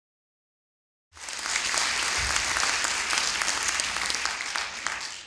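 Audience applauding, starting abruptly about a second in and dying away near the end.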